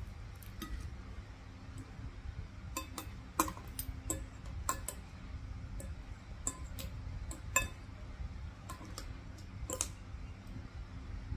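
Eating sounds at a meal of fish and okra: a dozen or so sharp clicks and light clinks at irregular intervals, the loudest about three and a half and seven and a half seconds in, over a low steady hum.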